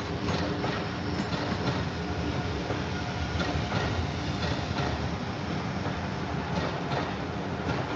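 Amtrak Acela train passing on the tracks beyond the platform: a steady rumble of wheels on rail with scattered clicks and clacks from the wheels over the rail joints.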